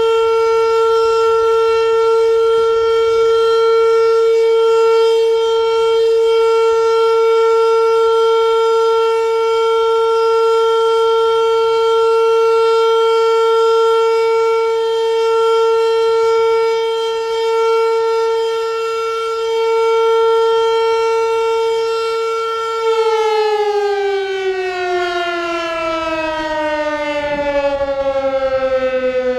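Federal Signal Model 5 eight-port tornado siren sounding a steady full-alert tone. About 23 seconds in, its pitch starts falling steadily as the siren winds down at the end of the alert.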